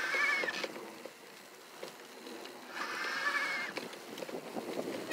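Bafang M600 mid-drive e-bike motor whining under power in two pulls: a rising whine that ends about half a second in, then a second whine of about a second near the middle. Between them the bike rattles over rough grass.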